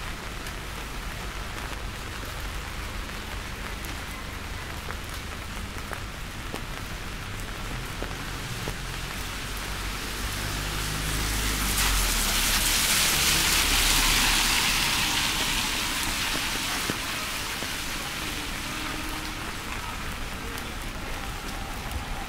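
Steady rain falling on surfaces, with a rushing hiss that swells louder for a few seconds around the middle and then fades back.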